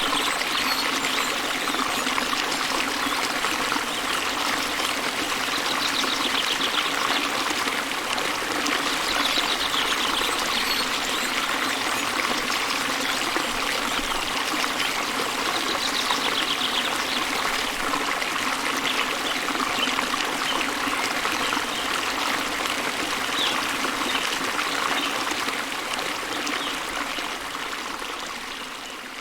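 Steady trickling of a running stream, with brief high bird trills every few seconds. It fades out near the end.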